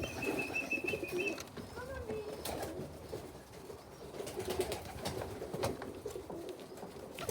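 Domestic pigeons cooing continuously in a loft, with a short high thin tone in the first second and a half and a few light clicks or knocks.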